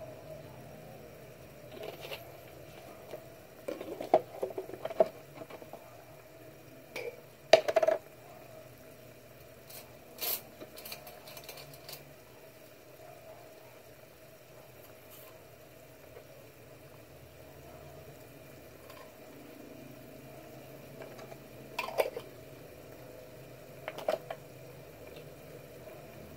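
Chicken adobo simmering in its braising liquid in a pan on the burner, a steady low bubbling, broken by a few short clicks and knocks in the first half and twice more near the end.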